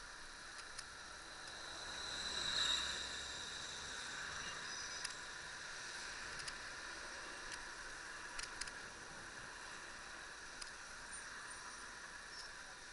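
Steady rush of street traffic and wind through a small action-camera microphone while riding, swelling briefly about two and a half seconds in, with a few faint clicks.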